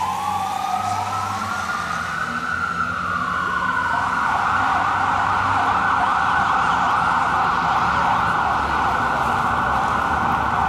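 Fire engine's dual Whelen electronic sirens. A wail sweeps up in pitch, then changes about two to four seconds in to a fast, warbling yelp that continues steadily. A faint low engine drone runs underneath.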